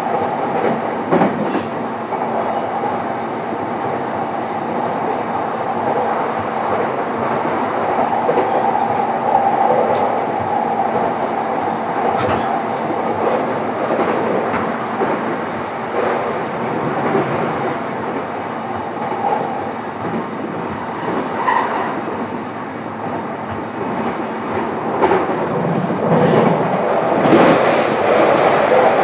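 Interior running noise of a JR East E233-7000 series electric train, heard aboard motor car MoHa E233-7406: a steady hum of motors and wheels on rail. Occasional sharp clicks and knocks come from the wheels crossing rail joints.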